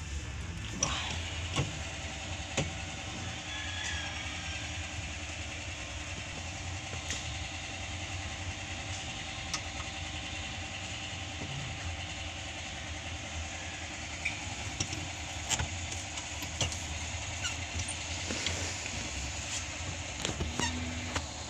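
Scattered metallic clicks and knocks from hand tools working on a Mitsubishi L300 van's gear-shift linkage, at irregular intervals, over a steady low rumble.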